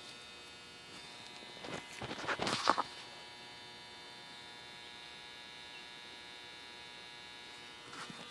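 Steady electrical mains hum with several fixed tones. About two seconds in, a short burst of rustling and light clicks as small engine parts are handled and a seal is fitted into the engine block, with a few faint clicks near the end.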